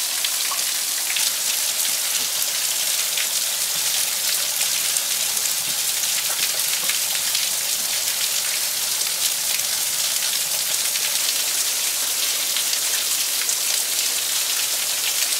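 Small waterfall pouring off a rock ledge and splashing, a steady hiss of falling water much like heavy rain.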